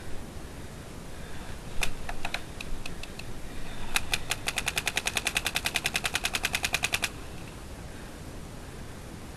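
Planet Eclipse Geo 2.1 paintball marker firing: a handful of separate shots, then a fast, even string of about ten shots a second for some three seconds that stops abruptly.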